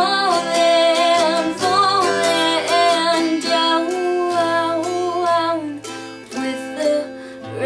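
A woman singing while strumming a twelve-string acoustic guitar. The voice pauses briefly about six seconds in while the guitar carries on, then the singing returns near the end.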